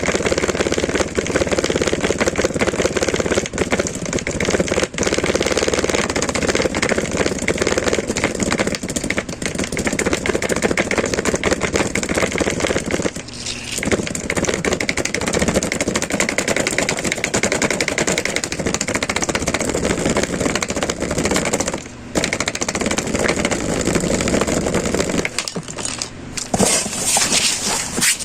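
Speaker with a burnt-out amplifier giving off a loud, rough crackling buzz made of rapid clicks, dropping out briefly twice and changing near the end.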